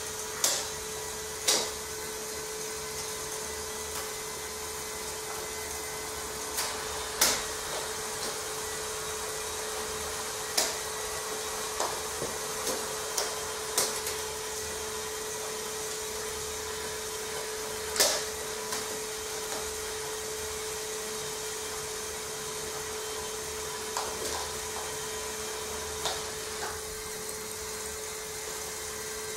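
Small electric motor and gear train of a Meccano model crawler tractor running with a steady whine, with about a dozen sharp metal clicks scattered through it as its gear levers are worked.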